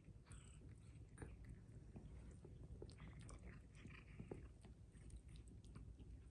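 Near silence: a low steady room hum with scattered faint soft clicks and rustles.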